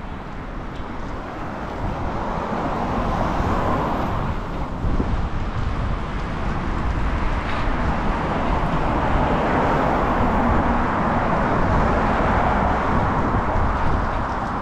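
Steady rushing noise of riding a bicycle, picked up by a helmet-mounted camera: wind and road traffic blended together, growing louder over the first several seconds.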